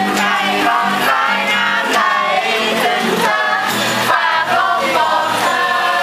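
A group of young voices singing a song together.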